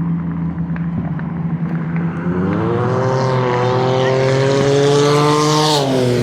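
A motor vehicle's engine running steadily, then revving up about two seconds in, holding high, and dropping off near the end.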